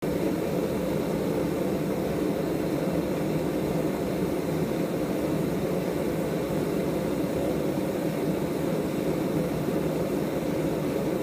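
Gas forge with two burners running: a steady, even rush of burning gas with no change in level.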